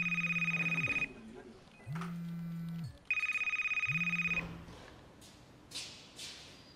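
A phone ringing: a trilling electronic ring lasting a little over a second, twice, about two seconds apart, with a low hum coming and going between and under the rings. The ringing stops about two-thirds of the way through, and a few faint knocks follow.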